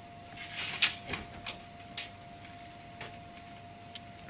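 Light clicks and rustling of front-panel header cables and plastic connectors being handled inside a computer case, with a cluster of sounds about a second in and single clicks every second or so after. A faint steady tone runs underneath.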